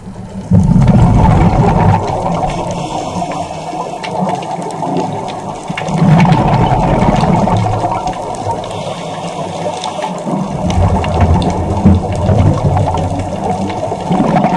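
Underwater sound through a GoPro housing: a scuba diver's exhaled regulator bubbles rumble in surges every four to five seconds over a steady muffled water hiss.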